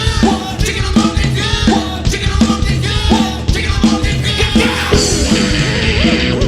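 1990s indie rock recording by a full band, with electric guitar and drums keeping a steady beat. The sound gets denser and brighter about five seconds in.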